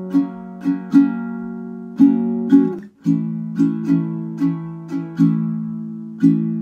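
Baritone ukulele strummed in a steady down-and-up rhythm, each strum a sharp attack with the chord ringing on between them. The chord changes about three seconds in.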